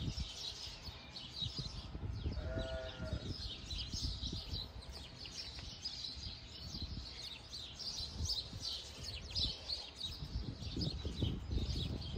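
A single bleat from the penned sheep and goats about two and a half seconds in, over small birds chirping throughout and a steady low rumble.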